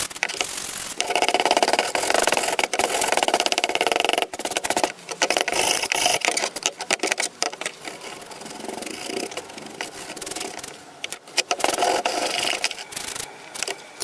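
Rust being scraped and abraded off a metal file: a continuous harsh scraping, uneven in level, quieter around the middle.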